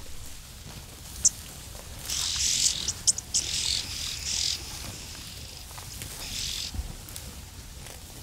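Red-billed oxpeckers calling. A short high chirp comes about a second in. Hissing, churring calls follow from about two seconds to four and a half seconds in, and again more faintly near six seconds.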